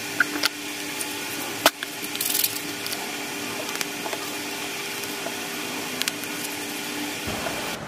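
Light clicks and taps of small plastic pigment bottles and a silicone mould being handled on a work table, the sharpest click a little under two seconds in, over a steady background hiss and faint low hum.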